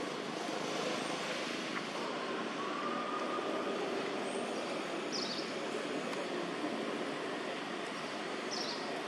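Steady outdoor background hiss with no clear single source. Two faint, short high chirps come about five seconds in and again near the end.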